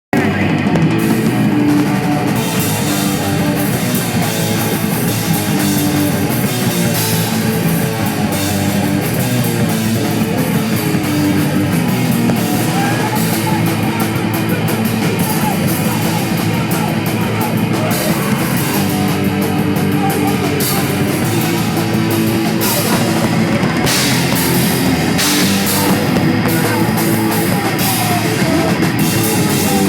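Heavy metal band playing live: electric guitars and a drum kit, loud and steady throughout, with several sharp cymbal crashes in the second half.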